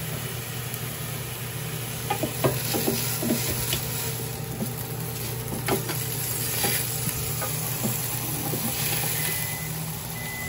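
Food sizzling in a Ninja Foodi indoor grill over the steady hum of its convection fan. Scattered light clicks and taps begin about two seconds in.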